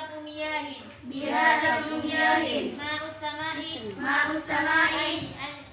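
Girls chanting together in a sing-song melody, phrase by phrase with short breaks: a group recitation of an Arabic lesson text.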